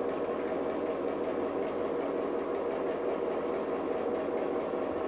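A steady mechanical hum with an even hiss, several steady tones held underneath, unchanging throughout.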